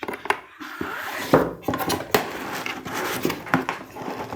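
Cardboard box being opened by hand: the lid scraping and rustling, with several small knocks and clicks.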